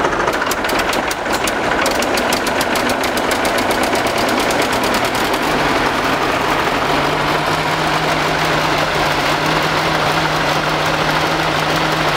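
Oliver HG crawler tractor's engine running at idle with a fast, even exhaust beat, settling into a steadier drone about halfway through.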